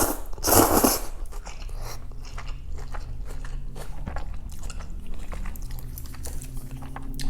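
A first mouthful of Thai boat noodle soup eaten close to the microphone. There is a short loud noisy bite or slurp about half a second in, followed by steady chewing with many small clicks.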